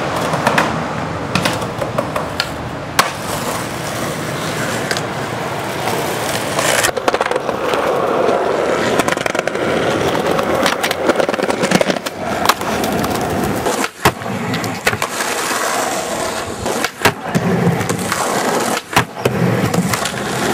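Skateboard wheels rolling over rough pavement with a steady rumble. It is broken again and again by sharp clacks and knocks of the board against the ground and ledges.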